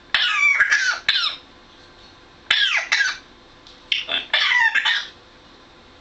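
African grey parrot calling in three bursts of high, wavering sounds: one at the start, a short one about two and a half seconds in, and a longer one from about four to five seconds.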